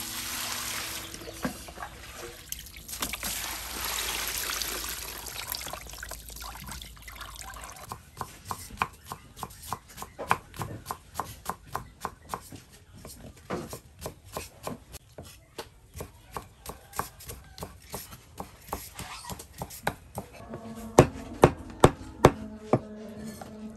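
Water pouring and splashing through a plastic basket over rinsed winter melon pieces. Then a knife knocks rapidly on a wooden chopping block, about three or four strokes a second, as melon is sliced into thin strips. Near the end come five louder, harder chops of a cleaver through boiled pork on the block.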